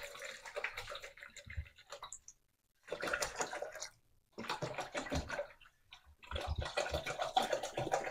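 Water poured from a plastic bottle into a plastic jug, splashing in four spells with short pauses between.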